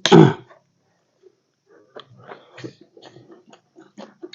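A short, loud vocal outburst right at the start, then a run of small crunches and clicks from eating chatpate, a crunchy puffed-rice snack.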